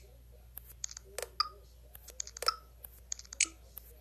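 Irregular light clicks and taps from a finger working a smartphone touchscreen, some with a short pitched ring.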